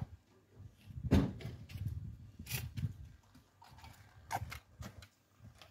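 Irregular knocks and clicks with a low rumble, the loudest knock about a second in and a few sharp clicks later on.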